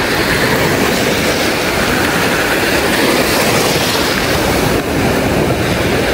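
Ocean surf washing in and out around the shallows, a steady loud rush.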